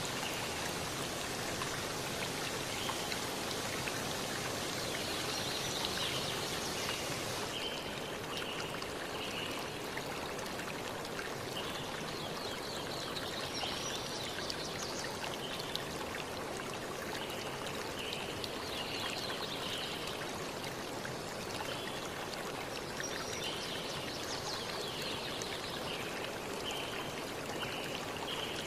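Steady hissing outdoor background noise, with runs of short high chirps recurring every few seconds; the hiss turns duller about a quarter of the way in.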